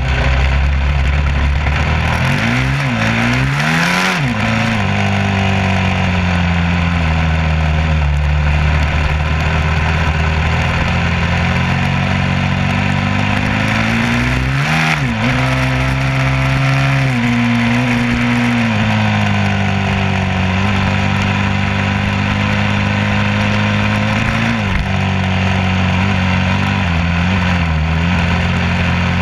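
An engine running steadily and loudly, with wind or road noise over it. Its pitch drops and climbs back a few times, about 3, 15 and 25 seconds in, as the engine changes speed.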